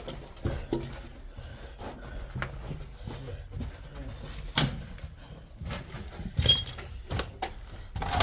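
Footsteps and scuffing on loose debris while climbing down into a tunnel, with irregular knocks and a few clinks, the loudest about four and a half and six and a half seconds in.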